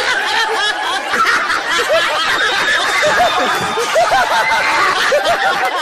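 Studio audience laughing hard and clapping, with a man's loud laughter among it.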